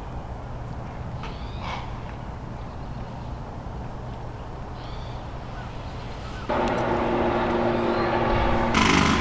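A low steady rumble with a couple of faint bird calls. About six and a half seconds in, a much louder motor-driven machine cuts in abruptly and runs at a steady pitch.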